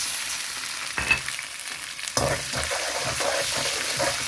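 Fried onions and freshly added ginger-garlic paste sizzling in hot oil in a pan. There is a knock about a second in, and from about two seconds in the mixture is stirred, with the utensil scraping the pan in repeated strokes.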